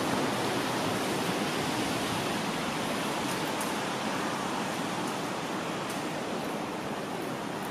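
Steady hiss of falling rain, with a few faint ticks of drops.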